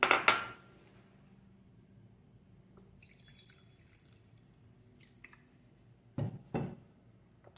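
Liquid dripping and splashing into an aluminium pressure cooker of rice and milk. A sharp knock comes at the very start and two more come near the end, with faint drips in between.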